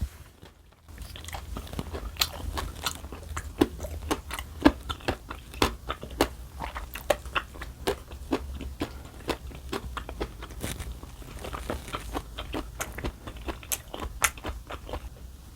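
Close-miked chewing and biting of crisp food: many irregular sharp crunches and clicks starting about a second in, over a steady low hum.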